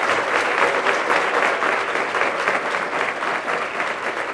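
Audience applauding: many hands clapping together in a steady patter that eases off slightly toward the end.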